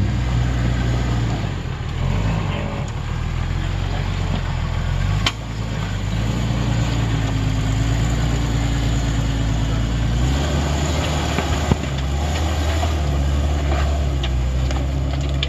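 Jeep Wrangler TJ's 4.0-litre straight-six engine running at low revs as it crawls up rock ledges, with a sharp knock about five seconds in. Its note shifts about ten seconds in.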